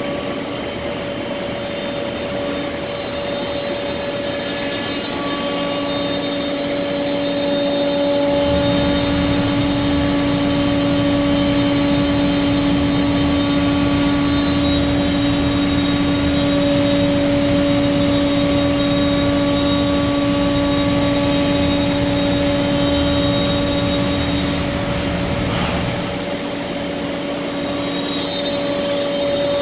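Shoda CNC router's spindle running with a steady whine while its bit machines a panel. From about eight seconds in a louder, rougher noise joins the whine, and it falls back a few seconds before the end.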